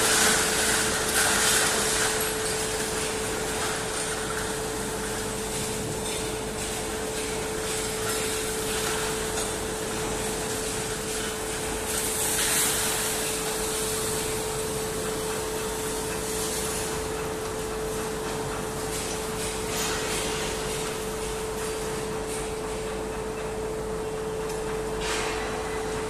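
Steady machinery din of a steel rod mill's scrap and furnace bay, with a constant hum throughout. Louder noisy surges come about a second in and again about twelve seconds in.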